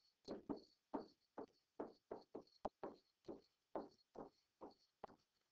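Stylus writing on a digital writing surface: a faint, quick series of short scratching strokes, about three a second, as words are handwritten.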